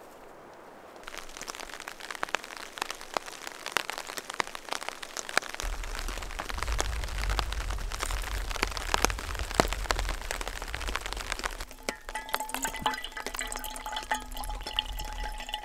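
Heavy rain pattering on a taut tarp overhead in dense, sharp drops, with a low rumble underneath. About twelve seconds in, rainwater running off the tarp's edge trickles into a hanging metal pot with a ringing, pitched splashing.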